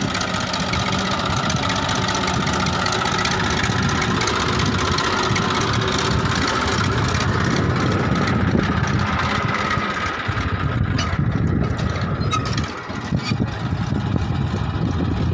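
Farm tractor engine running steadily, with a short dip in level near the end.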